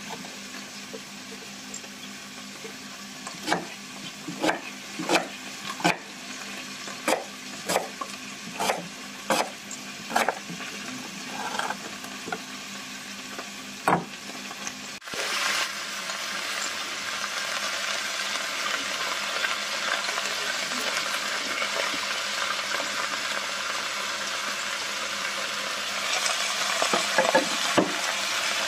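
Kitchen knife chopping red onion on a wooden cutting board: a string of sharp chops, roughly one a second, for about ten seconds. Halfway through it gives way to a steady sizzling hiss of vegetables cooking in a stainless steel pot, with a brief clatter near the end.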